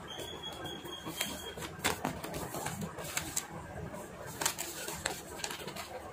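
Sheet of paper being folded and creased by hand, with crisp rustles and scattered clicks as the fingers press it flat against a cloth-covered surface.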